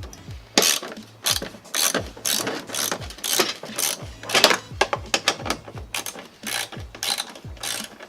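Ratchet wrench on a 10 mm socket clicking in quick, uneven runs of strokes as a tail-light mounting bolt is worked loose.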